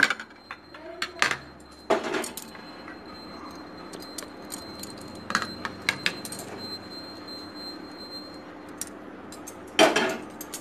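Kitchen utensils clinking and knocking against a bowl every few seconds while curd is poured over soaked sun-dried mango. The sharpest knocks come about two seconds in and near the end.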